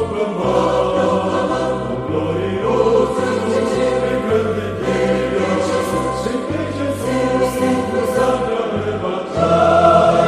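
Mixed church choir singing a Pentecostal hymn in Portuguese over a bass line that steps from note to note. About nine seconds in, the choir swells louder on a held chord.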